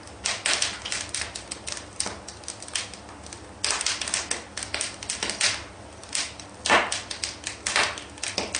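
Rapid, irregular clicking and tapping, several sharp clicks a second.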